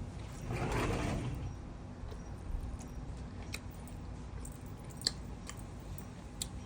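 Someone eating at the table: a few sharp light clicks of cutlery against a plate spread across several seconds, after a short muffled sound about a second in.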